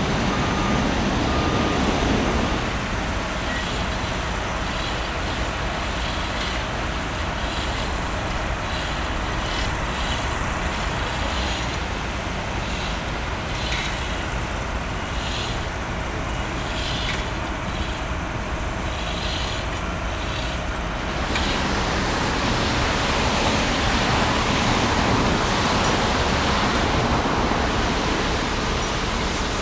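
Heavy rain falling, a steady dense hiss with a low rumble underneath, a little quieter from about two seconds in and fuller again about twenty seconds in.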